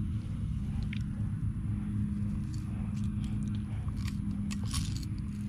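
Fishing pliers working a hooked lure out of a bass's mouth: scattered small clicks and crunches of metal against hook and jaw, more of them after about three seconds, over a steady low hum.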